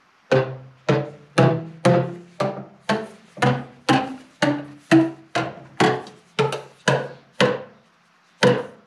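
Boomwhacker plastic tubes struck one after another, playing a C major scale up through two octaves at about two notes a second. Each note is a hollow, pitched thwack that rings briefly. The run pauses near the end before one more note.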